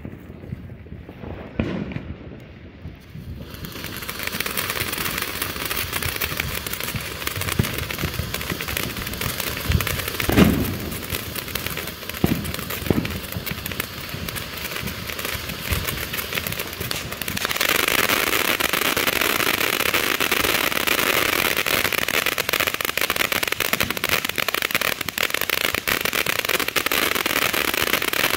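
TNT Atomic Salsa fountain firework spraying sparks with a steady hiss, starting about three seconds in. A few low thumps come around ten to thirteen seconds, and about halfway through the spray grows louder and brighter as the fountain reaches its fuller stage.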